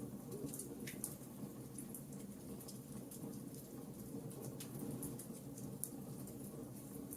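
Wood fire burning in a fireplace, crackling with many small, irregular sharp pops over a low steady rumble.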